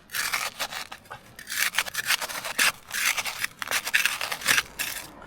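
A shovel digging into the ground, its blade scraping through the soil in a run of irregular strokes.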